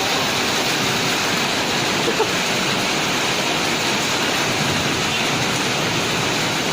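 Heavy rain and hail falling in a hailstorm: a steady, even rushing hiss.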